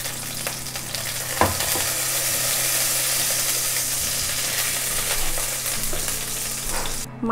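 Whole taki fish (spotted snakehead) frying in hot oil in a wok, a steady sizzle, while a spatula stirs and lifts the fried fish, with a single knock about a second and a half in. The sizzle cuts off suddenly near the end.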